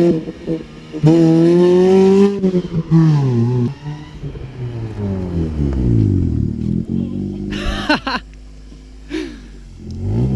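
The Nissan Micra rat rod's small engine revving up, then dropping away in falling sweeps as it eases off, with another rev near the end.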